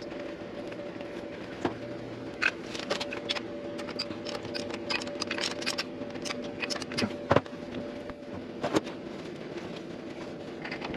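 Metal clicks and taps of bolts being threaded and snugged by hand into a B&G circulator pump's new bearing assembly, a few of them sharper knocks. A steady hum runs underneath.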